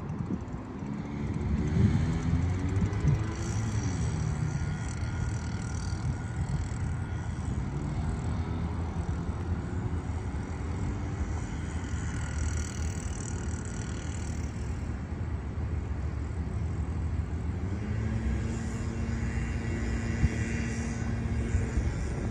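Engine noise from passing traffic over a steady low rumble. In the first few seconds an engine's pitch rises and falls, and a steady engine hum comes in near the end.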